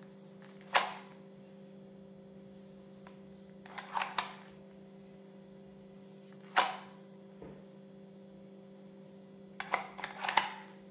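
Kydex belt holster clicking as a Glock 17 pistol is drawn and pushed back in, the holster's retention snapping over the pistol: sharp clicks about a second in, a pair around four seconds, one near seven seconds and a quick cluster near the end. A steady low hum underneath.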